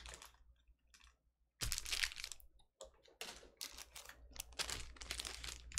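Near silence for about a second and a half, then irregular crinkling and clicking from hands handling foil trading-card packs.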